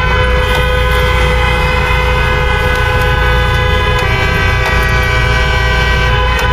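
Ford Cortina Mk3 engine running, heard from inside the cabin as the car moves slowly: a steady low drone with a whine above it, the pitch shifting about four seconds in.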